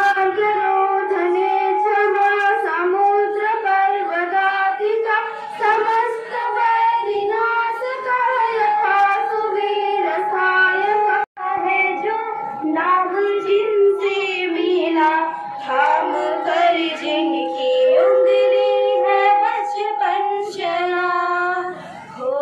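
Girls' voices singing together through microphones and a PA. A little past halfway the sound cuts out for an instant, and two girls then carry on singing in duet.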